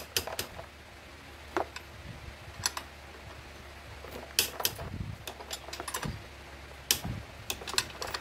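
Irregular sharp metallic clicks and clacks of a long-handled wrench and socket working on the tight handlebar stem fixing bolt as it is loosened, over a steady low fan hum.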